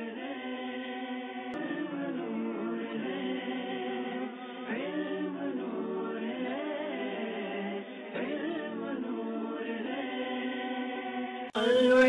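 Background music of wordless choir-like voices holding long, slowly shifting chords. About half a second before the end it cuts off abruptly and a louder, brighter music track starts.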